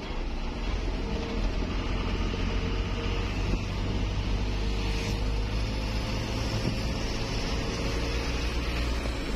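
Engine and road noise inside the cab of a moving vehicle, a steady low hum with the engine note rising slowly in the second half.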